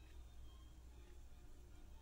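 Near silence: room tone with a steady low hum.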